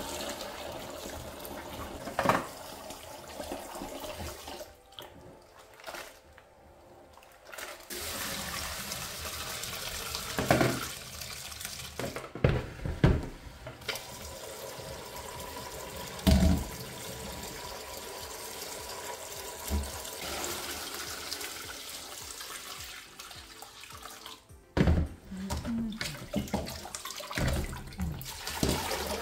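Tap water running and splashing into a plastic bowl of soaked black-eyed beans as they are stirred to loosen the skins. The cloudy water with the floating skins is poured off through a stainless-steel sieve in the sink. There are a few sharp knocks of the bowl and utensils against the sink.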